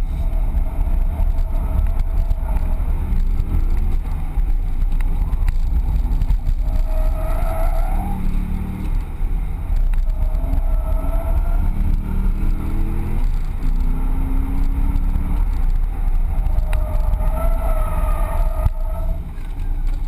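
Chevrolet Corvette Z06's 7.0-litre LS7 V8 heard from inside the cabin, revving up and down under hard track driving. The tyres squeal twice during drifts, about a third of the way in and again near the end.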